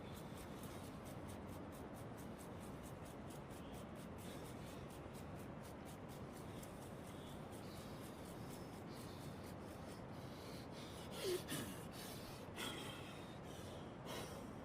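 Soft, evenly repeated rubbing or scratching strokes, a few a second, over a steady hiss. About eleven seconds in there is a short, louder breathy sound falling in pitch, and a smaller one a second later.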